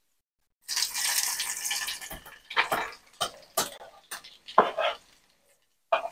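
Pork belly slices frying in hot oil in a pan. About a second in comes a loud hissing sizzle lasting a second or so, then a series of short sizzles and clatters as the slices are turned.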